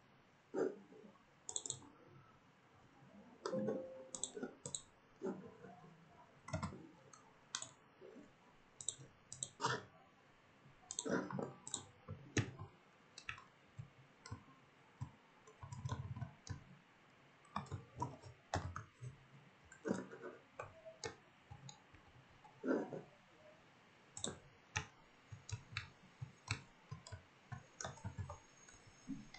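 Scattered, irregular clicks of a computer mouse and keyboard, some single and some in quick clusters.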